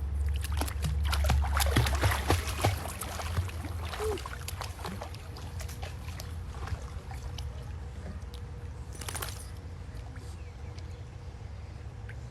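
Water splashing and sloshing in a swimming pool, busiest in the first four seconds, with another splash about nine seconds in, over a steady low hum.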